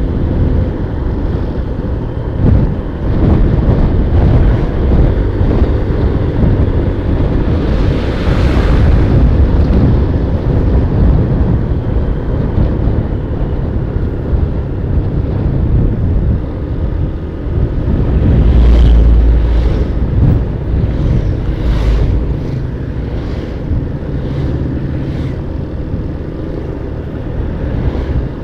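Wind rushing and buffeting the microphone on a moving motor scooter, over the low running noise of the engine and tyres. A heavier stretch of buffeting comes about two-thirds of the way through.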